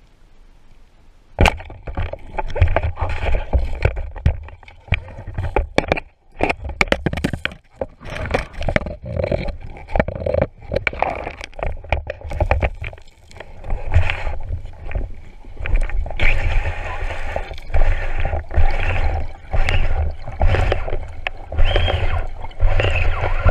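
Underwater speargun shot into a rock crevice: a sharp crack about a second and a half in, then many irregular knocks and scrapes as the spear shaft and the speared white seabream thrash against the rock, over a low rush of water moving past the camera housing.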